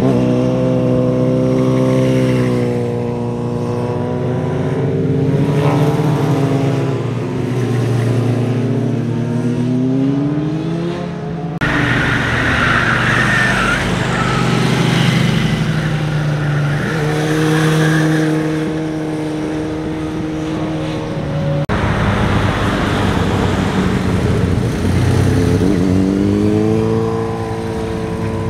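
Motorcycle engines passing one after another through a tight bend, the revs falling as they slow into the curve and rising again as they accelerate out, with gear changes. The sound changes abruptly twice where clips are joined.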